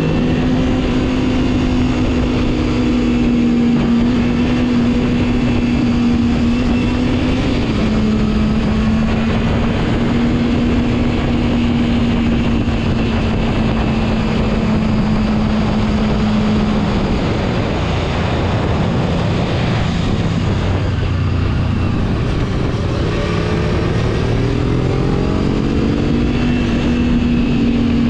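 Motorcycle engine running at a steady cruise under the rider, with wind rushing over the microphone. The engine note drops a step about a quarter of the way in, eases off a little past halfway, then climbs again as the bike accelerates near the end.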